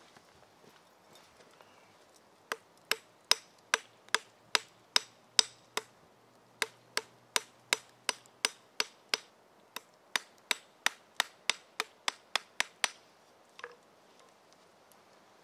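A hand hammer striking in a steady series of about thirty sharp blows, two to three a second, with two short breaks. The blows stop near the end, followed by one faint knock.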